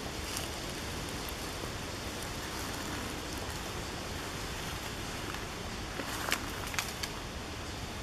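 Steady hiss of a breeze rustling through woodland leaves, with a few sharp taps about six to seven seconds in.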